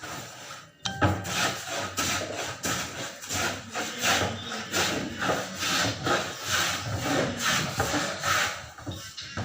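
Rhythmic back-and-forth scraping strokes, two to three a second, starting about a second in and keeping an even pace, like a hand saw or rough scrubbing or sanding.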